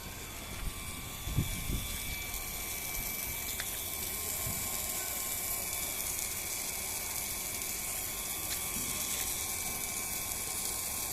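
Steady hiss of water spraying from a rain pipe, a perforated irrigation spray hose, with a few low bumps in the first two seconds.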